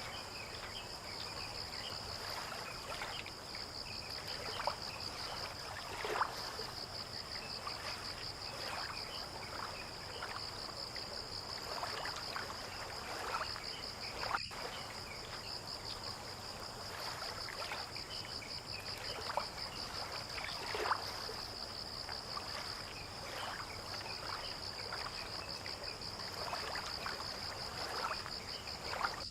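Waterside dawn ambience: insects keep up a steady, high, rapidly pulsing trill, while water laps and splashes softly in small, irregular slaps against the shore or boats.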